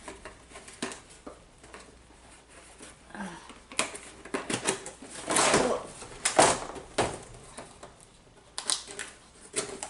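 A hair dryer and its packaging being handled: scattered clicks and light knocks, with a few louder rustling bursts about halfway through.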